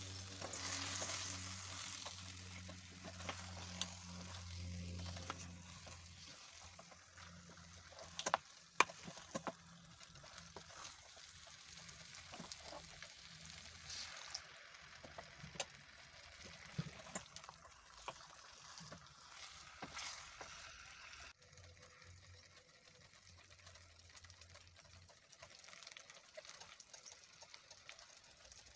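Chicken pieces stirred with a wooden spoon through thick red sauce cooking in an aluminium pot: a soft sizzle, with a few sharp knocks of the spoon against the pot. The sound drops abruptly quieter about two-thirds through.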